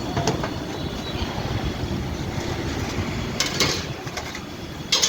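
Steady low rumble of a moving vehicle, with short clattering clicks about three and a half seconds in and again near the end.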